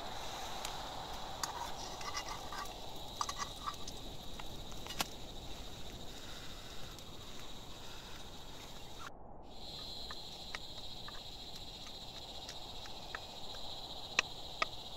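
Light clicks and scrapes of a utensil working food in a small frying pan, over a steady high-pitched insect drone. The sound cuts out for a moment about nine seconds in.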